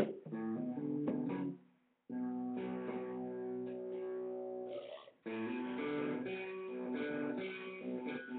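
Electric guitar strumming chords, breaking off briefly about two seconds in and again just after five seconds before carrying on.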